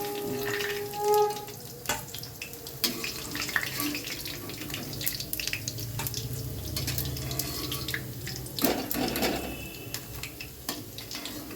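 Chicken balls deep-frying in hot mustard oil: a steady sizzle with many small crackles and clicks throughout.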